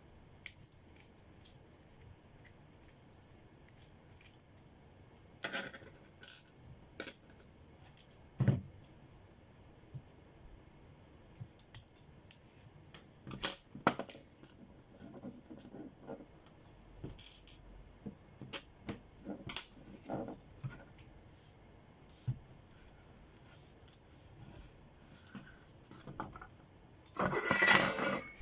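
Irregular clicks, taps and scrapes of hands and tools working on a drone battery pack, with a longer, louder scraping burst near the end.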